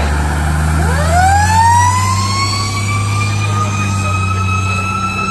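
Fire department tower ladder truck pulling out with its diesel engine running low. About a second in, its siren winds up, rising in pitch quickly at first, then more slowly, and settles into a high steady wail.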